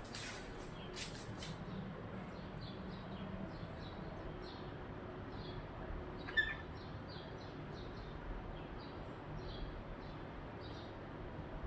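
Parrot chirping: a few louder, harsh notes in the first second or so, then a string of short, soft, high chirps, with one louder call about six seconds in.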